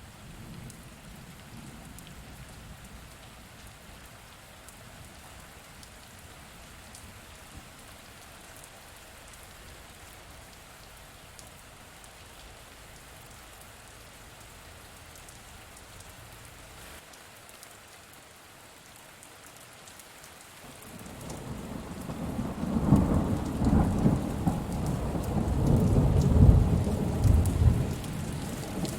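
Steady rain falling in an even hiss; about two-thirds of the way through, a rolling rumble of thunder builds and becomes the loudest sound, continuing to the end.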